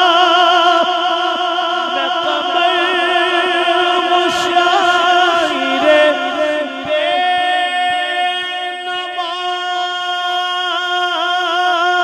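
A male naat reciter singing a cappella into a microphone, drawing out long melismatic notes with a wavering pitch that settle into steady held notes about halfway through.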